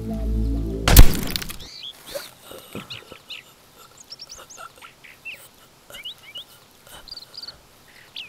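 Music cut off about a second in by a single very loud gunshot with a short echoing tail, followed by birds chirping and calling in a forest.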